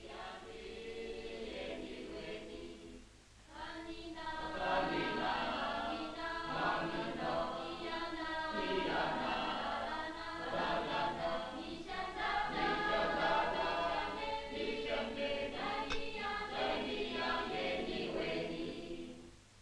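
A choir singing, softer for the first three seconds or so, then fuller and louder.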